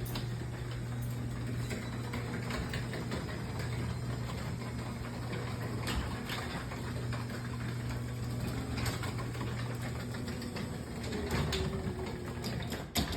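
Steel sectional garage door running on a LiftMaster 84501 belt-drive opener: a steady motor hum with scattered clanks and pops from its worn rollers and 30-year-old hinges, and a knock near the end.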